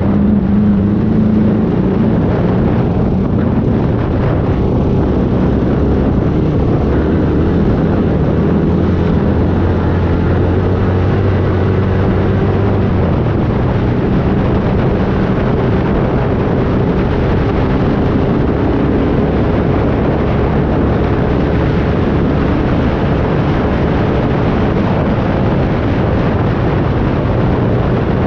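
A vehicle engine running steadily at a constant pace, a loud continuous drone with a low hum.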